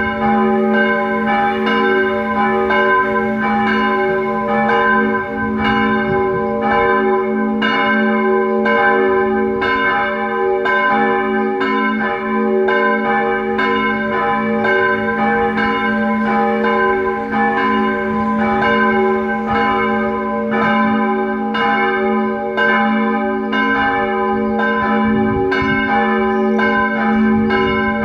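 Church bells of the Protestant church in Binz ringing: strikes follow in a steady, rapid rhythm and overlap over a lasting hum.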